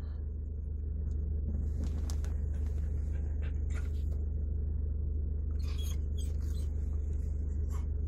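Steady low rumble of a campervan heard inside its cabin, with faint scattered clicks and rustles from the dogs moving about.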